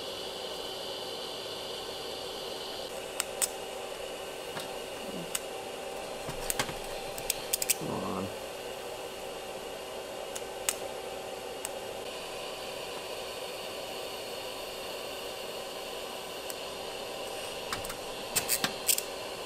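Electric arc welding on steel tubing: a steady hiss with a constant hum, broken by a few sharp clicks, with a quick run of clicks near the end.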